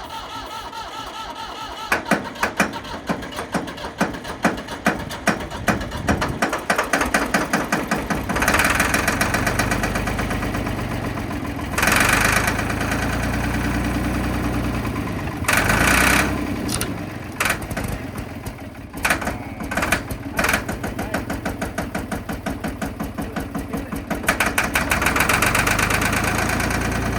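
Ford 3500 backhoe's diesel engine cranking over with a steady rhythmic beat on the starter, then catching on starting fluid and running roughly. It surges, stumbles into sputters and picks up again. It starts running on its own power, the sign that the injectors and injection pump are working.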